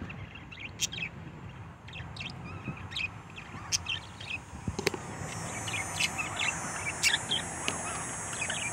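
Budgerigars chirping and chattering in many short, quick calls. A steady high buzz joins about halfway through.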